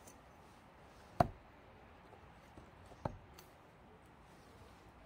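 An axe striking into a pine log twice: a sharp blow about a second in and a lighter one about two seconds later.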